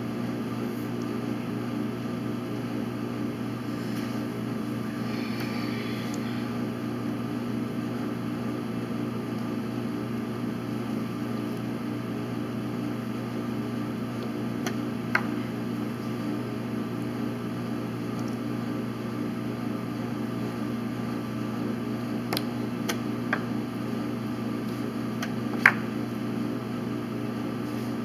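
Steady low mechanical hum, with a few sharp clicks of chess pieces set down on the board and a chess clock being pressed, the loudest about two seconds before the end.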